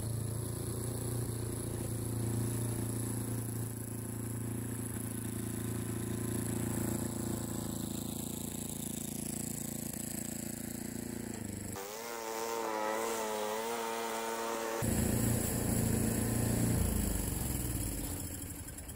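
Troy-Bilt snowblower's gas engine running steadily. About twelve seconds in it is abruptly replaced for some three seconds by a wavering higher tone, then returns and fades near the end.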